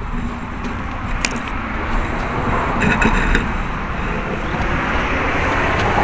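Rumbling handling noise on a small camera's built-in microphone as the camera is picked up and moved, with a few sharp clicks and knocks.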